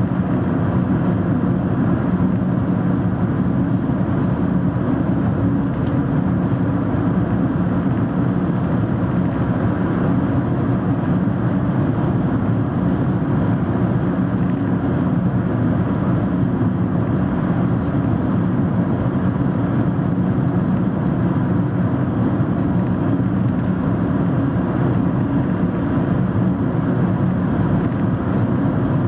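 Steady road and engine noise heard from inside a car cruising through a long highway tunnel, a low, even rumble with no changes in pace.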